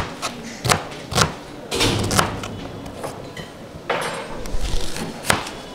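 Kitchen knife chopping a red onion on a cutting board: sharp knocks of the blade hitting the board at irregular intervals, about one every half second, with a pause in the middle.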